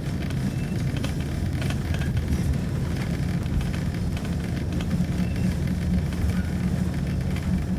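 Preserved diesel train running steadily along the line, a low engine drone with light clicks and rattles over it.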